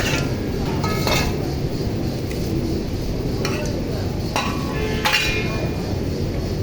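Metal utensils clinking against a cooking pot, about five separate clinks that each ring briefly, over a steady low rumble.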